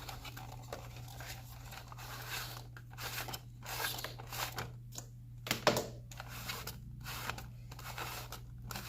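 Irregular plastic rustling and scraping from handling a tower power strip while spinning it to retract its power cord, with one sharper clack a little past midway.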